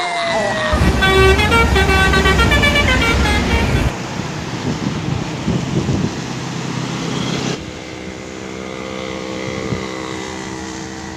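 A siren sweeping down in pitch dies away. Then a vehicle horn plays a quick tune of several stepped notes over a loud engine rumble for about three seconds. After that comes steady road traffic noise, with a truck engine's steady drone joining about two-thirds of the way through.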